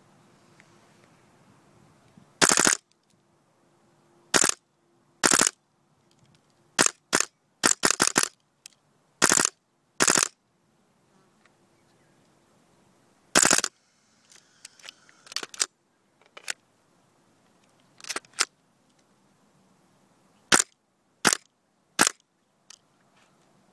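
Gas-blowback airsoft rifle converted to run on high-pressure air, firing semi-automatically: sharp single shots at an uneven pace, some in quick pairs and a fast string of about four around eight seconds in, with a few fainter clicks between.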